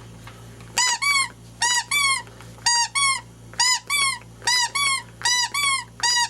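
A squeaky toy squeezed and released over and over, giving high squeaks in pairs, about one pair a second, seven pairs in all.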